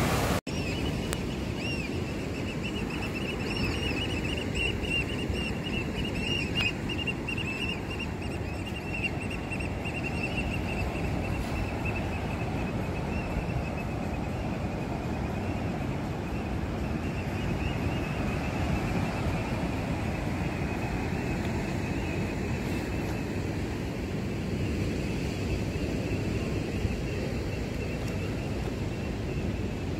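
Ocean surf breaking and washing onto the beach below a pier, a steady rushing noise mixed with wind on the microphone. A faint high steady tone runs through about the first ten seconds.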